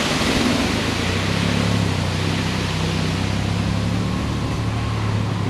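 Water rushing over a small weir, with a car engine's steady hum coming up about a second in and running on under it.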